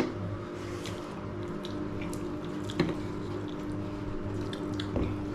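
Quiet eating sounds, soft wet mouth noises and a few sharp utensil clicks, over faint background music with long held notes.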